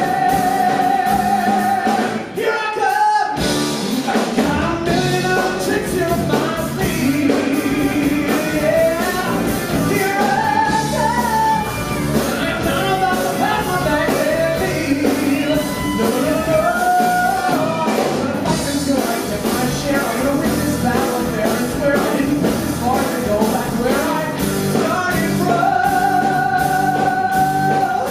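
Male singer belting a rock-style song with a live band and drums, holding long sustained notes at the start and again near the end, with a short break in the sound about two seconds in.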